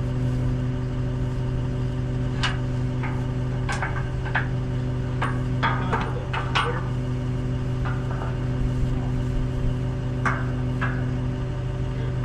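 Heavy metal windmill parts clanking and knocking irregularly, about a dozen times, as a part is slid and fitted into place. A steady engine hum runs underneath.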